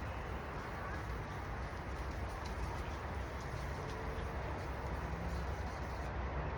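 Steady background noise with a low rumble, and a few faint short high chirps.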